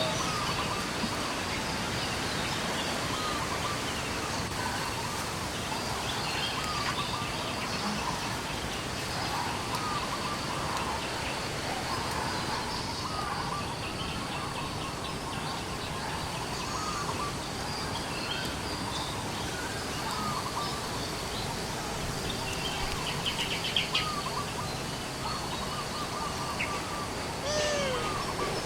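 Outdoor forest ambience: a steady background hiss with many short chirping animal calls scattered throughout, and one longer call that sweeps down in pitch near the end.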